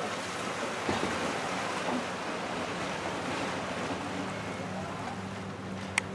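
Choppy water washing and wind buffeting the microphone, with a steady low engine hum from a motorboat that comes in about halfway through. There is a single sharp click near the end.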